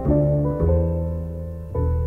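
Piano music: slow, gentle notes and chords, each struck and left to fade, with fresh notes a few times.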